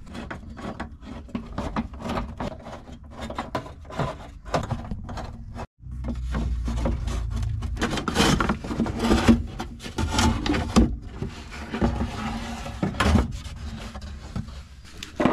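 Old glove compartment being pried and worked out of a pickup's dash: repeated knocks, scrapes and rubbing, breaking off for an instant about six seconds in.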